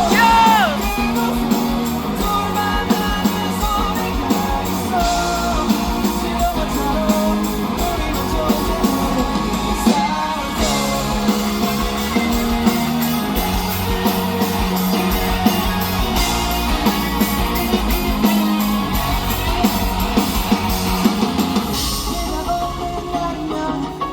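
A live rock band playing the song with drum kit, electric guitars and bass, a stretch between sung verses.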